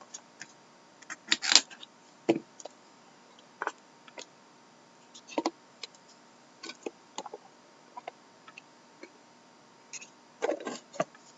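A sealed trading-card pack being opened and its cards handled: scattered short crinkles, taps and clicks, with a louder flurry about a second and a half in and another near the end.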